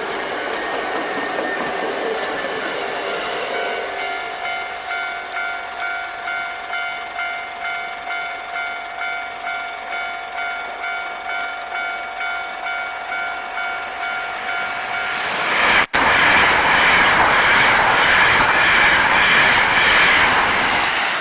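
The noise of a train fading away, then a Japanese level-crossing alarm ringing in an even electronic two-tone pulse about twice a second. About fifteen seconds in, a Hankyu 9300 series train passes close by at speed, and its loud rushing wheel and running noise drowns out the alarm.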